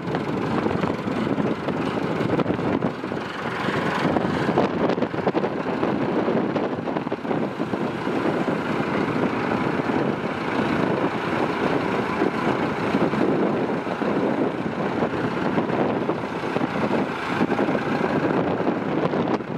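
Massey Ferguson 265 tractor's four-cylinder diesel engine running steadily as the tractor moves slowly over gravel.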